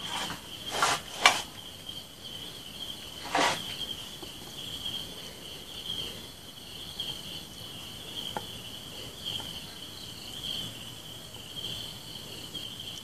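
Crickets trilling steadily in the background, with a few sharp clicks and knocks in the first four seconds, the loudest a little over a second in.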